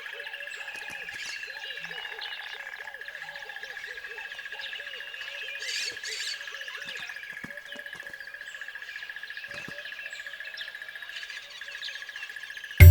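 Many birds chirping and calling, over a steady high-pitched tone.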